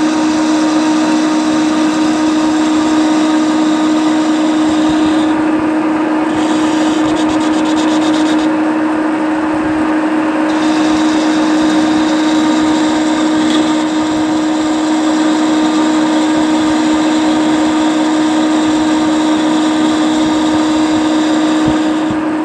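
Centre lathe running at 500 rpm, a steady machine hum with one strong low tone, while the tool is fed by hand on the compound slide taking a taper-turning cut on the workpiece.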